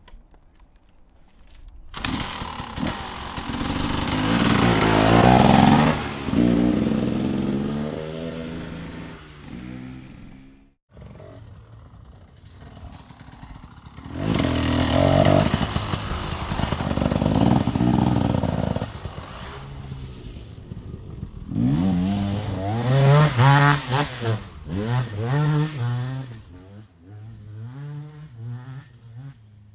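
250cc two-stroke dirt bike engine revving in three loud bursts, the pitch climbing and falling away each time. The last burst is a run of quick throttle blips.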